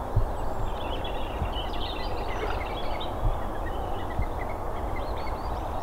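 Small birds chirping and twittering in quick short notes over a steady low rumble, with a few faint low thumps.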